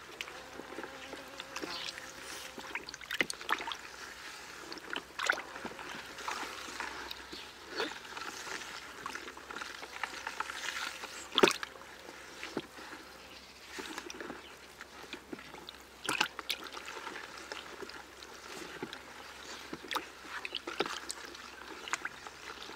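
Wooden stick stirring a bucket of fermenting nettle macerate: swirling, sloshing liquid with irregular knocks of the stick against the plastic bucket, the loudest about halfway through.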